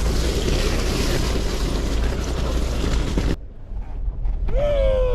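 Steady rushing noise with a heavy low rumble, typical of wind buffeting the microphone outdoors. It cuts off abruptly about three and a half seconds in. Near the end a man's drawn-out voice begins.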